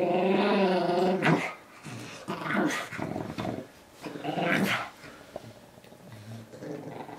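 Pug growling in play while tugging at a soft toy. One long wavering growl lasts about a second and a half, then several shorter growls come every couple of seconds.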